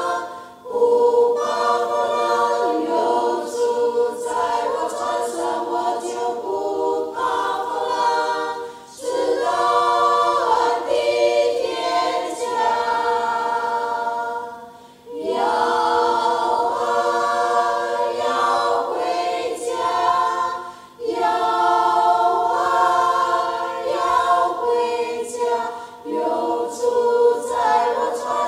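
All-women church choir singing a hymn a cappella. The held notes come in phrases of about five or six seconds, with short pauses for breath between them.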